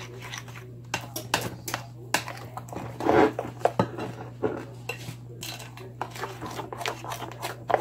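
A spoon clinking and scraping against the bowl while thick cake batter is stirred, in quick irregular taps with a louder knock about three seconds in.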